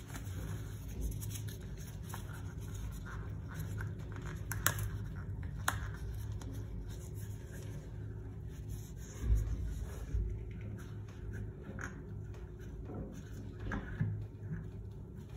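A rag and gloved hand rub and scrape around a chrome Sloan flush valve and the toilet's inlet spud, with a few sharp clicks and a dull knock about nine seconds in, over a steady low hum.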